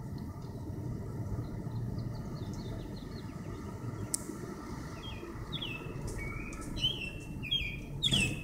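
A songbird singing from a treetop: clear whistled notes, each sliding down in pitch, at first short and sparse, then coming more often and louder in the second half, the loudest one near the end. A steady low rumble of background noise lies under the song.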